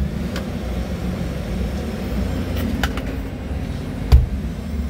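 1997 Freightliner FLD120 semi truck's diesel engine idling with a steady low rumble, heard inside the cab. A few light clicks, and a sharp thump about four seconds in.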